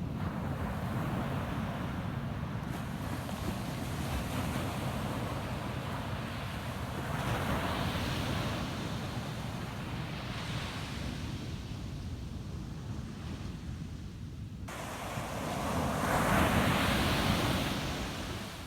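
Ocean waves breaking and washing up on a sandy beach, with two surges, the louder one near the end. Wind rumbles on the microphone throughout.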